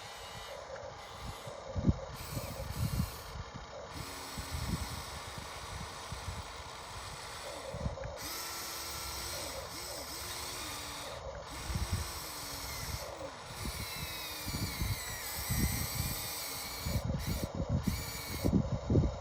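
RC excavator's small electric pump and motors whining, the pitch rising and falling as it works, with irregular dull thumps and scraping of dirt and bucket, busier near the end.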